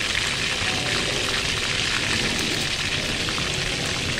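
Chicken drumsticks sizzling in hot oil in an aluminium wok: a steady frying hiss with small scattered pops.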